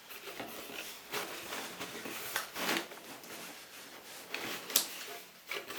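Hands handling an opened cardboard box and its packing paper: irregular rustling and rubbing, with a few light knocks, the sharpest just before the end.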